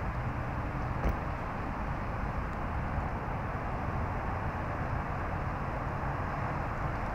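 Steady rumble of city traffic from a nearby road and overpass, with one short knock about a second in.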